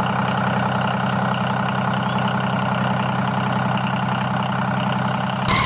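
Small engine of a homemade miniature bulldozer running steadily at an even speed.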